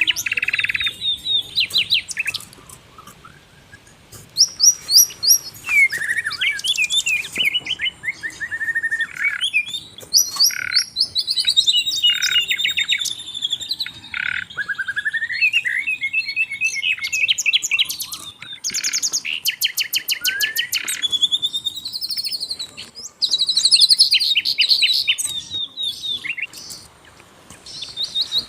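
Sikatan londo flycatcher singing: long phrases of rapid, varied high chirps and fast trills, with short pauses, one a couple of seconds in and another near the end.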